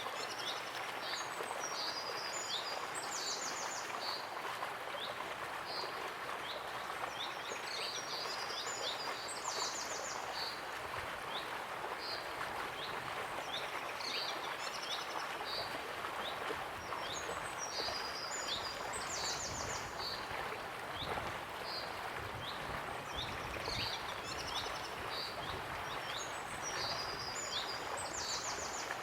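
Steady rush of a waterfall, with a bird singing over it: scattered high chirps and a short phrase of chirps and a fast trill that comes back about every nine seconds.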